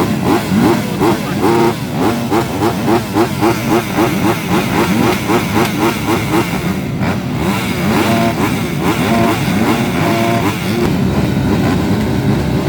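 Several motocross dirt bike engines revving together, their pitch rising and falling over and over.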